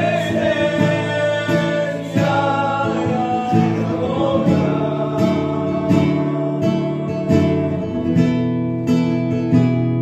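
A man singing a hymn into a microphone while strumming an acoustic guitar in a steady rhythm, with some long held notes.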